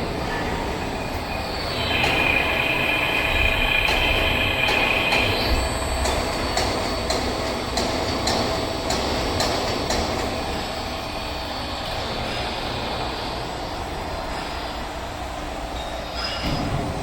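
Heavy welding rotator running under load, with a steady mechanical rumble. A high squeal, like steel wheels on a rail, comes in about two seconds in and lasts a few seconds. A run of sharp clicks follows.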